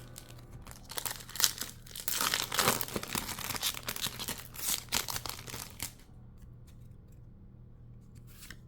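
A Pokémon TCG Trick or Trade mini booster pack's wrapper being torn open and crinkled, a crackling tear starting about a second in and lasting some five seconds, loudest early on, then stopping.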